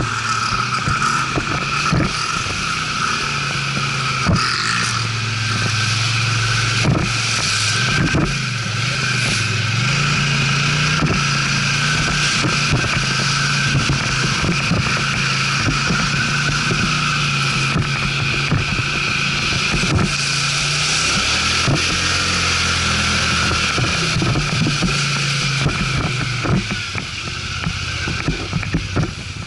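ATV engine running with the revs rising and falling, over a steady rushing hiss and many short knocks and rattles from riding over rough ground.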